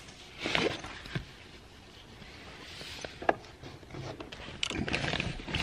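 Soft rustling of bedding and small clicks and knocks from a person shifting and handling things while lying in a car, in irregular swells rather than a steady sound.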